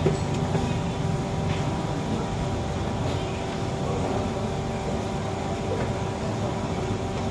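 Steady machine hum with several fixed pitches over a noisy background. A wooden pestle knocks once in a clay mortar right at the start, and a couple of faint knocks follow from food preparation.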